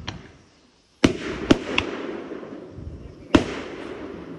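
Fireworks going off: a quick cluster of sharp bangs about a second in, another loud bang near the three-second mark, and a crackling, rumbling tail between them that slowly fades.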